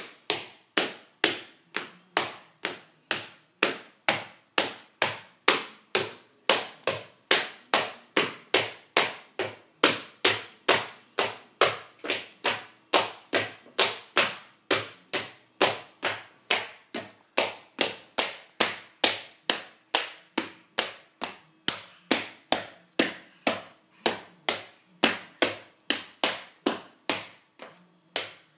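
Loud hard-soled shoes tapping in a steady, even rhythm, about two sharp knocks a second.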